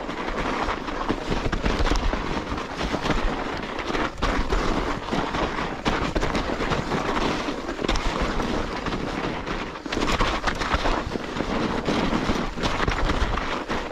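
Mountain bike riding downhill through deep snow: wind buffets the microphone while the bike clatters with many short knocks over the bumpy trail.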